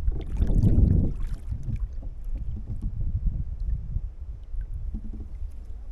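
Water splashing and sloshing around a kayak, with wind rumbling on the microphone. A louder rush of splashing comes in the first second.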